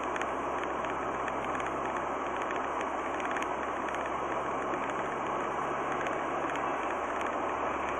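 Steady road and engine noise inside a car cruising at about 60 km/h, picked up by a dash cam. A faint low hum under it drops out about seven seconds in.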